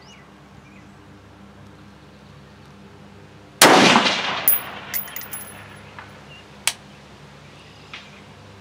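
A single shot from a 16-inch-barrelled AR-15 in 5.56 NATO about three and a half seconds in, its report echoing away over the next second or so. A few sharp clicks follow over the next three seconds.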